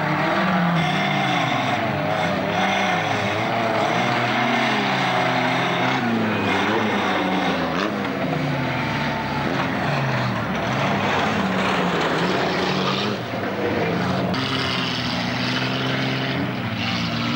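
Several stock car engines revving at once, their pitch rising and falling continuously. There is a short sharp knock about eight seconds in.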